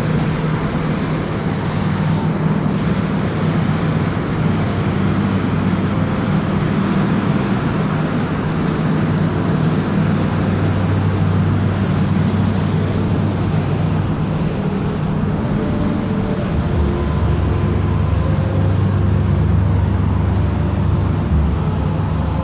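Steady motor vehicle engine and road noise, a continuous low hum that grows deeper and stronger about three-quarters of the way through.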